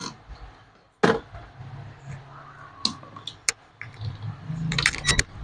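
Scattered clicks and light knocks from handling on a workbench, ending in a quick run of clicks as a digital multimeter's rotary selector dial is turned.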